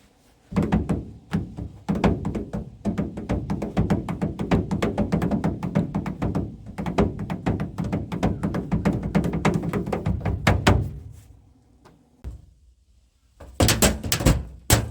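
Improvised hand drumming on a hard household object: a fast, rhythmic run of taps with a deep thud. It stops about eleven seconds in and starts again after a pause of about two seconds.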